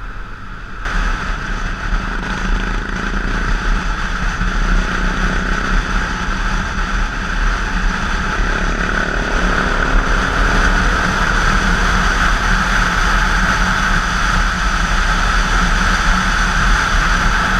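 BMW GS dual-sport motorcycle engine running at road speed, with wind rushing over the onboard camera's microphone. The sound jumps up about a second in and then stays steady.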